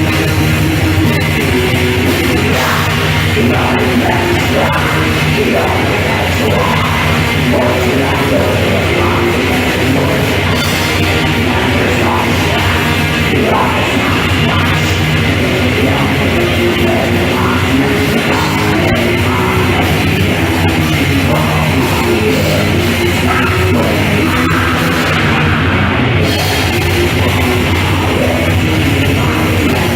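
Black metal band playing live: loud, dense heavy-metal music without a break.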